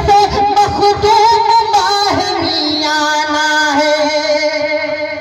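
A man sings a naat into a microphone through a PA, gliding between notes and then holding one long note over the second half.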